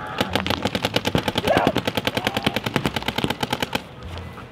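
Paintball markers firing in rapid streams of shots, many per second, cutting off near the end.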